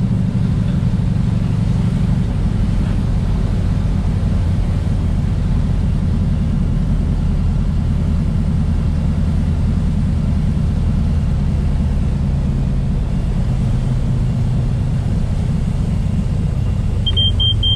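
Cabin drone of a 1979 Mooney M20K's engine and propeller, a steady low hum as the plane rolls along the runway. A short high beep sounds near the end.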